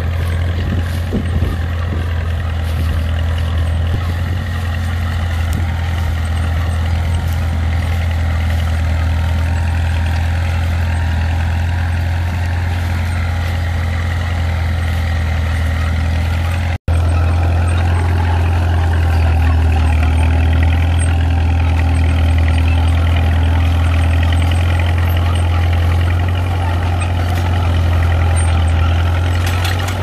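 Kubota compact tractor's diesel engine running steadily under load while pulling a plough, with a Caterpillar D2 crawler running further off. After a momentary dropout a little past halfway, the Cat D2 crawler's diesel engine runs close by under load as it pulls a disc plough.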